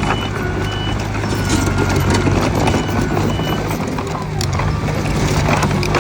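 Diesel engines of earthmoving machinery running steadily, with short high beeps from a reversing alarm and scattered metal clanks.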